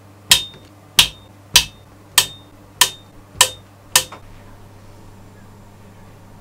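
Torque screwdriver set to 1.6 Nm clicking over as its clutch slips at the set torque, tightening a model engine's glow plug: seven sharp metallic clicks about 0.6 s apart, each with a brief ring, stopping about four seconds in. A low steady hum continues underneath.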